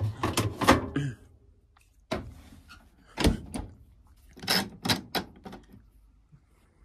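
Several separate clunks and knocks from a condenser tumble dryer as its lint filter is pushed back into place and its door is shut.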